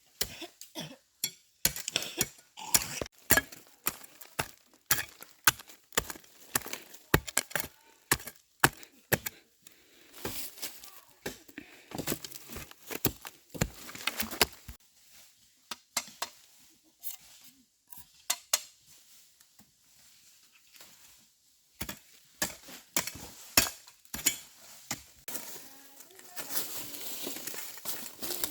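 Sharp, irregular knocks and clinks, several a second at times, with a lull of a few seconds in the middle and a rising hiss near the end.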